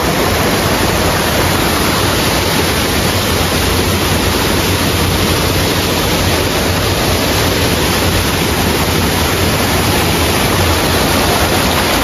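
Fast, shallow water rushing over the stones of a rocky stream, a steady, loud, even rush.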